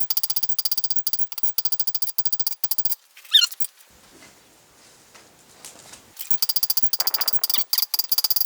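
Hand hammer striking hot 12 mm rebar steel on an anvil in a fast run of ringing blows. The hammering stops about three seconds in, just after a single loud metallic squeal that falls in pitch, and picks up again about six seconds in.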